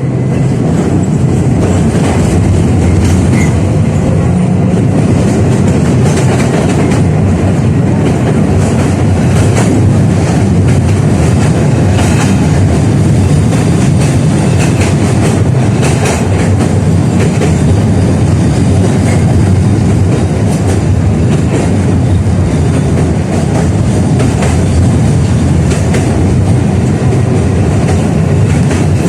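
A 71-605A (KTM-5A) tram running along its line, a steady loud rumble of wheels on rail with irregular clacks and knocks from the track throughout.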